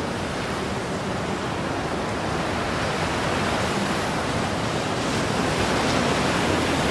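Steady rushing of wind and sea around a sailing yacht under way close-hauled in gusty, bumpy conditions, growing slightly louder toward the end.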